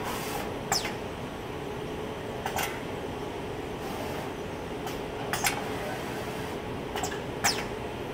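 ESE US2000DX SMT screen printer cycling in test mode: a steady machine hum with a faint steady tone under it, broken by a series of sharp clicks and two quick downward-swooping whines, the loudest about a second in and near the end, as its mechanisms move.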